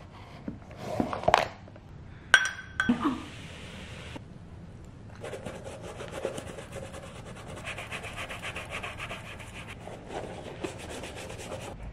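An old toothbrush scrubbing a white sneaker in quick circular strokes: a rapid, steady rasp of bristles that starts about five seconds in. Before it come a few short handling knocks and a sharp click.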